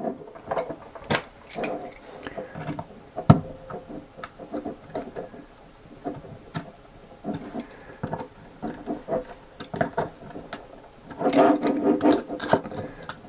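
Hands prying and working a small plastic gimbal bracket with a precision screwdriver: scattered small clicks, taps and scraping rubs of plastic, with one sharp click about three seconds in and a denser stretch of rubbing near the end.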